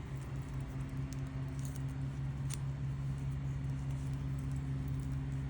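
Steady low hum with a few small clicks and handling noises as the surplus plastic tie-wrap tails are worked at to cut them off.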